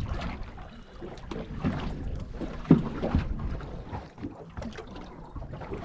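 Wind buffeting the microphone and water slapping against the hull of a small drifting fishing boat, with a sharp knock about three seconds in.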